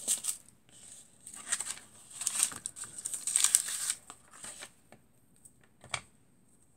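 Sheets of tracing paper, tissue paper and crinkled transfer foil rustling and crinkling as they are moved about, in several short bursts, followed by a single sharp click near the end.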